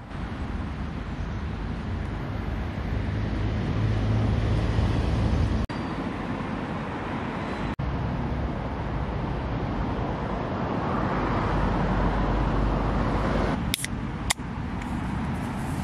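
Steady road traffic going round a busy roundabout, a continuous rumble of car engines and tyres. Near the end, two sharp cracks about half a second apart as the ring-pull of a beer can is opened.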